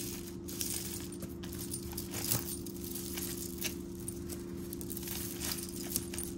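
Costume jewelry clicking and clinking as it is handled: a faux-pearl necklace on a metal chain being drawn out of a tangle of beaded necklaces and metal cufflinks, with scattered small clicks throughout.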